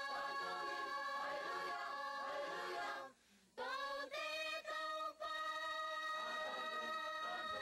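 A large choir of women and men singing together, holding long notes. The singing stops for about half a second a little after three seconds in, then goes on.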